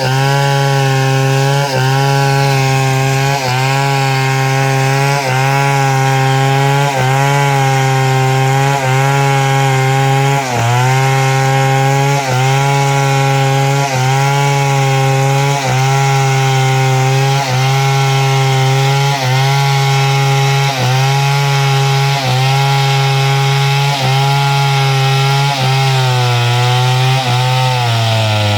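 Chainsaw running at high speed under load, ripping lengthwise through a log to mill planks. The engine note dips briefly about every second and a half and sags lower in pitch near the end.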